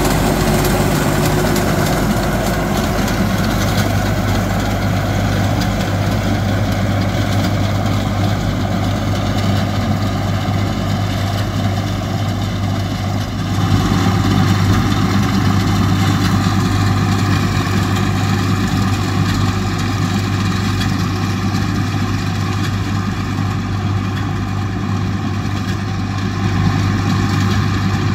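Swaraj 744 XT tractor's diesel engine running steadily under load as it drives a front-mounted reaper binder through standing wheat. The sound shifts about halfway through, then runs on steadily.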